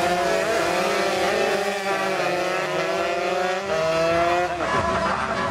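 Several two-stroke underbone racing motorcycles revving hard through a corner, several engine notes at once, each rising and falling in pitch.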